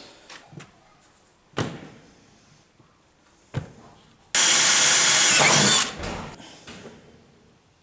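A wheelbarrow wheel on a hinged bracket being swung by hand: two knocks as it pivots, then a loud rasping noise lasting about a second and a half, about four and a half seconds in.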